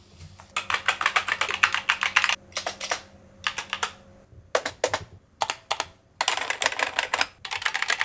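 Fast typing on a SteelSeries Apex Pro TKL (2023) gaming keyboard with magnetic OmniPoint switches: rapid runs of key clicks in several bursts, separated by short pauses.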